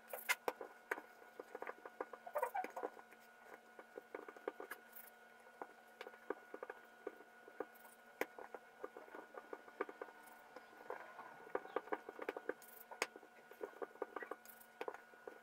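Yeast dough being rolled into balls by hand: a dense, irregular sticky crackling of small pops as air bubbles in the soft dough burst under the palms. A faint steady hum runs underneath.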